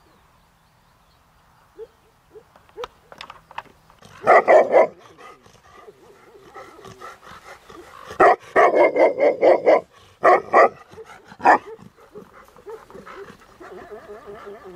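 Tibetan Mastiffs barking: a short burst of barks about four seconds in, then a longer run of barks a few seconds later, followed by two single barks.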